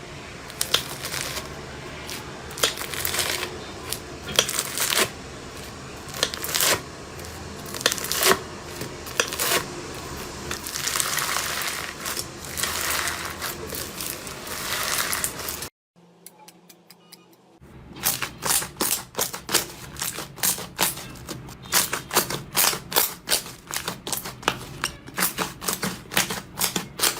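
Slime being squeezed and pressed close to the microphone, giving sticky crackling and popping clicks. It breaks off briefly in the middle, then comes back as a fast run of sharp crackling clicks, several a second.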